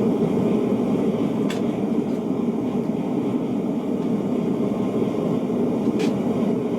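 Propane gas forge burner running with a steady roar, with a couple of faint clicks about a second and a half in and near the end.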